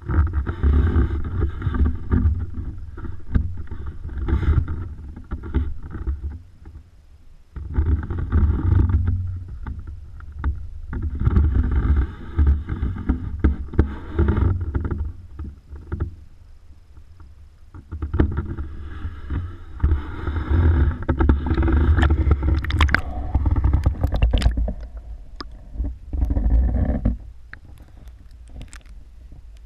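Water sloshing and lapping against a waterproof camera housing at the waterline, in deep rumbling surges a few seconds long with short lulls between them, and a few sharp clicks during the last surge.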